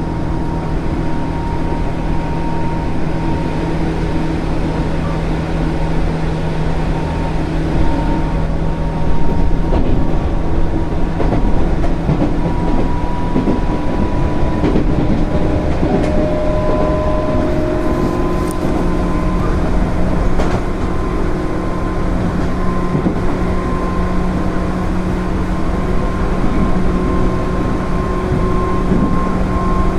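JR 205 series 0-subseries electric train running at speed under field-added excitation control: a steady motor whine whose pitch creeps slowly upward, over a constant rumble of wheels on rail with a few faint clicks.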